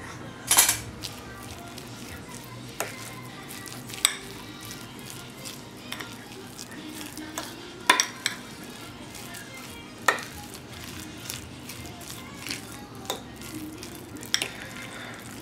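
A metal fork stirs and mashes potato salad in a white ceramic bowl, working mayonnaise through the potatoes. The fork clinks against the bowl at irregular intervals, loudest about half a second in and again near eight and ten seconds in.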